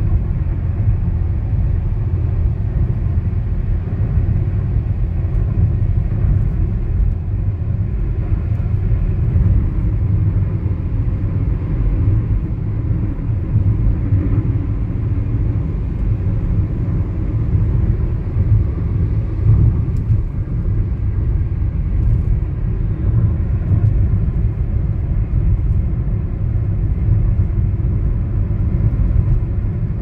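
Tyre road noise heard inside the cabin of a Hyundai Aura fitted with Yokohama tyres, cruising at a steady 80 km/h on a concrete highway with the windows closed: a constant low rumble that holds steady throughout.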